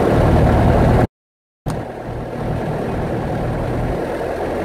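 A Grumman light aircraft's piston engine and propeller running steadily. About a second in, the sound cuts off completely for about half a second, then the engine runs on.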